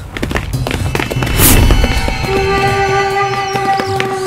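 Film fight sound effects: a quick run of sharp hits with a loud rushing burst about a second and a half in. Then, just past two seconds, the background score comes in with sustained held notes over a steady beat.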